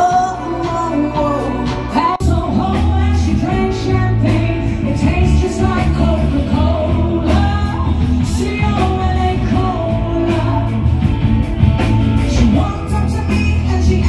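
Live pop-rock band with a female lead vocalist singing into a microphone, backed by drums and electric guitar. There is a brief dip about two seconds in, after which the bass and drums come in fuller.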